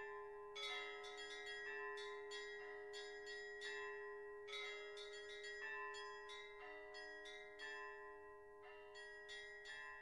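Church bells ringing: quick, irregular strikes on several higher bells over the steady hum of a lower bell.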